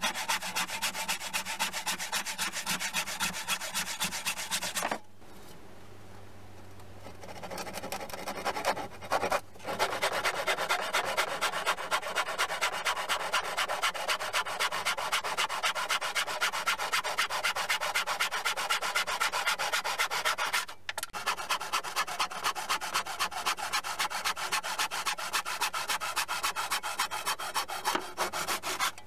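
Sandpaper rubbed back and forth over wood by hand in quick, even strokes. The strokes stop for a couple of seconds about five seconds in, then pause briefly twice more.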